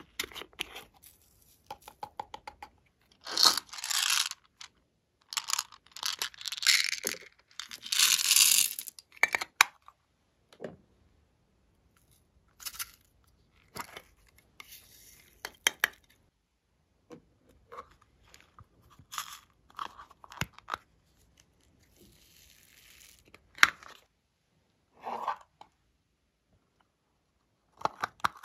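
Tearing and rustling of a wrapper being peeled off, loudest in two long stretches early on. Then scattered clicks, taps and short rustles as small plastic containers are opened and handled.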